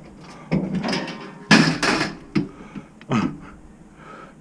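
Junk and debris knocking and clattering as it is pulled and shifted inside a steel roll-off dumpster: a few sharp bangs, the loudest cluster about a second and a half in.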